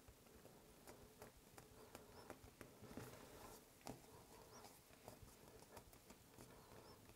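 Near silence, with faint, irregular soft ticks and rustles of fingers pinching and pressing fondant against the table.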